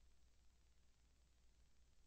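Near silence: only a faint steady low hum and hiss, with no sound of the boats or water.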